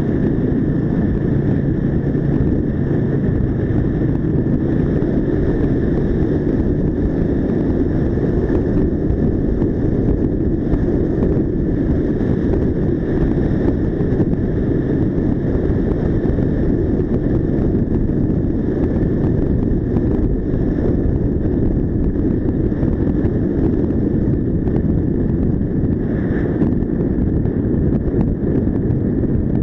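Mash Cafe 400 single-cylinder motorcycle engine running at road speed, mixed with wind noise on the microphone.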